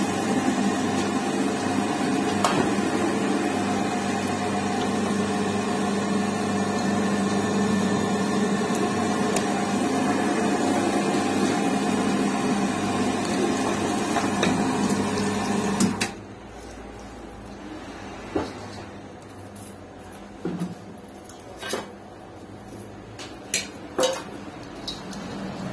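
Electric butcher's meat grinder running steadily as it pushes minced meat for kefta out through its plate. It stops suddenly about 16 seconds in, leaving a few scattered light knocks.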